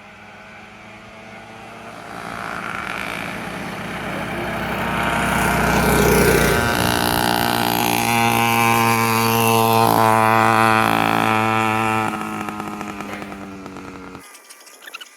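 Small engines of an 80cc two-stroke motorized bicycle and a 212cc mini bike racing: they rise in level for about six seconds as they accelerate, then hold a steady pitch. The sound fades and cuts off abruptly near the end.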